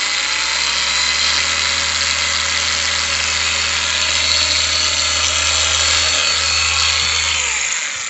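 DeWalt 18/20 V cordless random-orbit (eccentric) polisher running free at full speed: a steady electric-motor whine over a low hum, creeping up in speed during the first second as the dial is turned up. It winds down and stops near the end.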